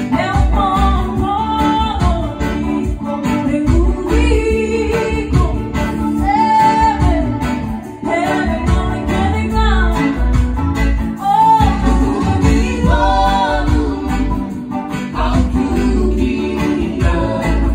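A live band playing a song: a singer's melody over guitar, with a steady low beat underneath.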